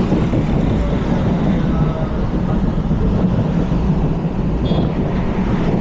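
Indian Railways train running on the track, a steady loud low rumble.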